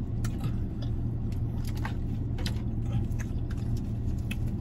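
Steady low hum of a parked car with its windows shut, with scattered small clicks and taps of a spoon against a plastic cup as someone eats.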